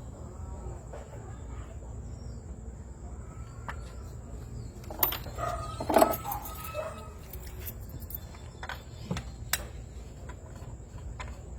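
Scattered light clicks and clinks of hand tools and small metal parts during work on the engine, over a steady low hum. About five to seven seconds in there is a louder muffled sound like a voice or an animal call.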